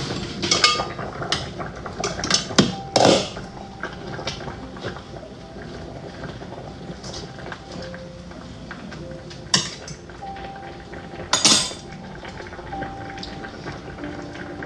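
Cutlery and a cooking pot clinking and clattering as food on the stove is checked to see whether it is done. A run of light knocks comes in the first three seconds, then quieter handling, then two louder clatters about ten and eleven and a half seconds in.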